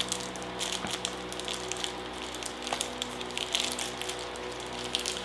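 Cadbury Picnic bar's plastic wrapper crinkling as it is torn open and peeled back by hand, an irregular run of small crackles and rustles. A steady low hum runs underneath.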